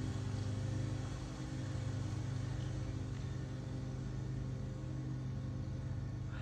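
Low, steady drone of sustained synthesizer tones, a deep held hum with a few fainter held tones above it, from the music accompanying the dome show.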